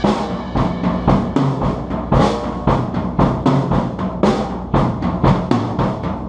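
Drum kit played in a steady rhythm, about four hits a second, with a low sustained tone underneath.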